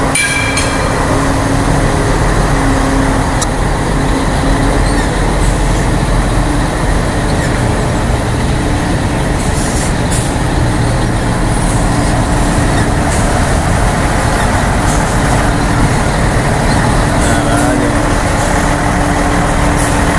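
Scania 111's six-cylinder diesel engine running steadily as the truck pulls away at low speed and turns.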